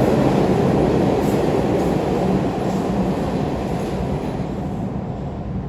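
New York City subway train running on the track, a loud, dense rumble of wheels and cars that fades steadily.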